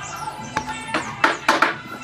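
Background music with steady held tones, and a quick run of four or five sharp taps or knocks about a second in.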